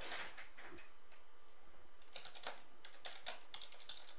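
Typing on a computer keyboard: light, irregular key clicks, a few each second.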